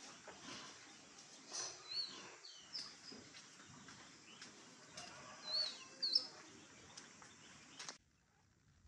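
Small bird chirping, short high chirps about two seconds in and again a few times around six seconds, over light handling clatter; the sound drops away abruptly near the end.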